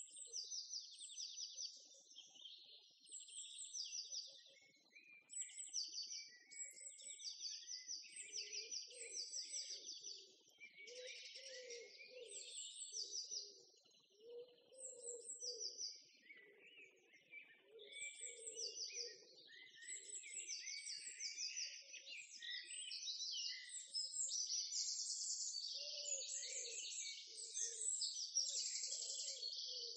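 Birds chirping and trilling in a dense, continuous chorus of quick, high-pitched phrases, with a fainter, lower sound coming and going underneath.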